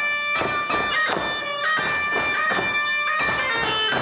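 A medieval-style bagpipe playing a tune: a quick-moving melody that steps from note to note over a steady drone.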